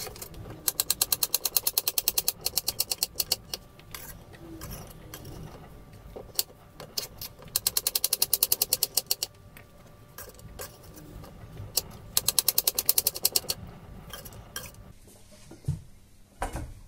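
Chef's knife chopping a peeled potato into thin pieces on a slate cutting board, the blade striking the stone with each stroke. Three runs of rapid, even strikes at about eight a second, each lasting two to three seconds, with a few single knocks between them.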